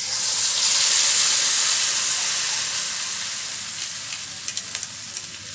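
Ground chili and shallot spice paste dropped into hot oil in a metal wok: a loud sizzle that starts suddenly and slowly dies down, with a few crackles near the end.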